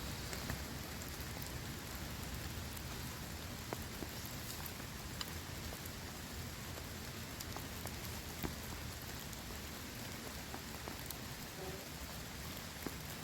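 Steady rain falling, with scattered taps of single drops striking nearby surfaces.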